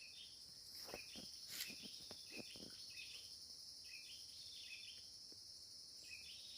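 Faint, steady high-pitched chorus of forest insects such as crickets, with short chirps repeating every second or so. Several faint clicks come between about one and two and a half seconds in.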